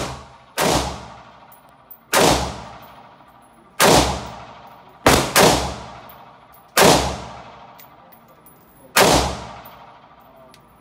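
Semi-automatic shots from an IWI X95 Tavor 5.56 mm bullpup rifle, about eight in all at an uneven pace of one to two seconds apart, with a quick pair near the middle. Each sharp crack rings out in a long echo off the walls of an indoor range.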